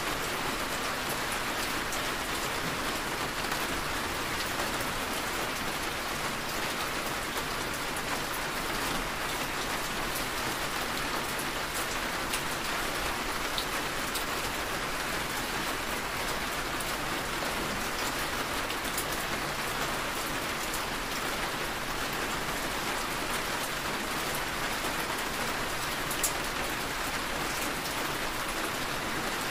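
Rain falling on a moving car, heard from inside the cabin: a steady hiss with many scattered sharp drop ticks, and one slightly louder tap near the end.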